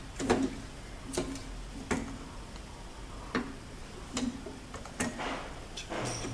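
Irregular clicks and light knocks, about eight or nine of them, as a roll of laminating film is worked onto the hot laminating machine's unwind shaft and the end chuck is twisted into its core.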